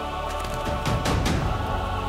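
Background film music: sustained low chords, with a few sharp percussion hits about a second in.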